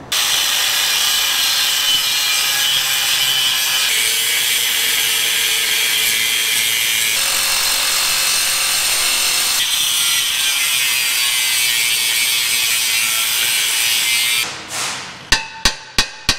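Reciprocating saw cutting steadily through a tube on a cast-aluminium intake manifold. It stops near the end and gives way to a quick series of hammer blows on the manifold.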